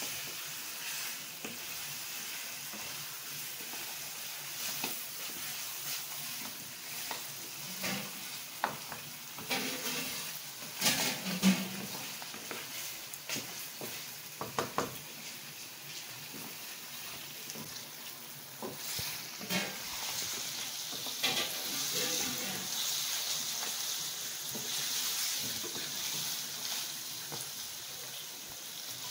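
Chicken pieces sizzling in hot oil in a non-stick wok, stirred with a wooden spatula that scrapes and knocks against the pan now and then. The chicken is being fried with salt so that it lets out its water; the sizzle grows stronger toward the end.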